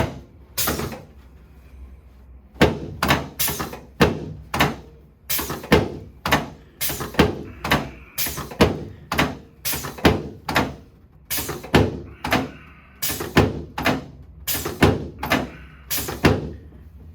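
A long series of sharp knocks during hands-on chiropractic treatment, about two to three a second and often in pairs, starting about two and a half seconds in after a couple of single knocks at the start.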